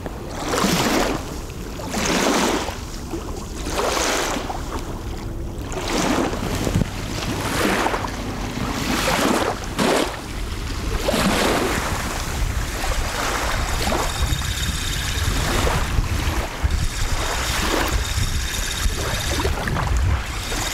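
Wind buffeting the microphone: a steady low rumble with swishing gusts that swell and fade every second or two.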